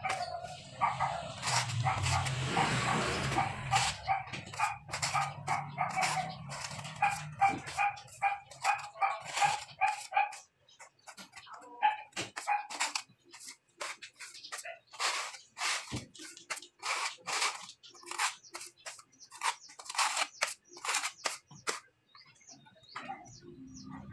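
A dog barking in quick short barks, a few a second, for about the first ten seconds. These are followed by a run of short sharp clicks and knocks.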